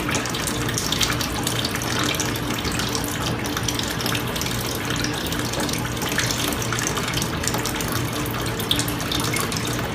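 Water running into a blue bowl concentrator and swirling around the bowl while it streams out of the drain fitting into a sink, a steady splashing rush over a low, even hum.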